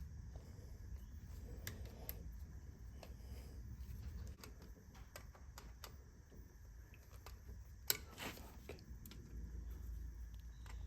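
Faint scattered clicks and light taps of small parts and tools being handled, with one sharper click about eight seconds in, over a low rumble.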